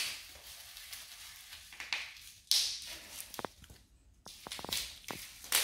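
Bubble wrap and plastic packaging rustling and crinkling in irregular bursts as it is handled, with a few light clicks.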